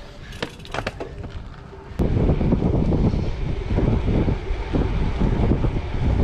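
Wind buffeting the microphone while riding a bicycle: a steady low rumble that comes in suddenly about two seconds in. Before it, quieter sound with a few sharp clicks.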